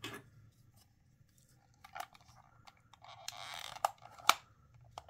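Hard plastic parts of a Zam Wesell speeder action-figure vehicle being handled: a short scraping rustle about three seconds in, then sharp clicks as the hinged body panels snap shut.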